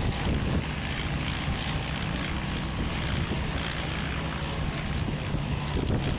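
Small crawler tractor's engine running steadily under load as it pulls a plow through the soil, with wind buffeting the microphone.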